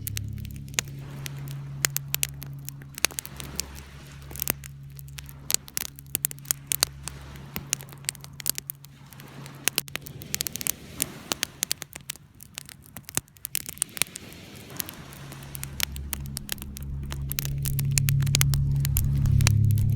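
Wood fire crackling in a fireplace, with irregular sharp pops and snaps throughout. Under it runs a low steady electrical hum that fades in the middle and grows louder again over the last few seconds.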